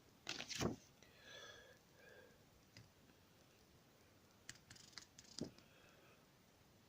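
Faint handling of a plastic Blu-ray case and its paper sleeve: a couple of sharp clicks under a second in and a few more about four and a half to five and a half seconds in, with near silence between.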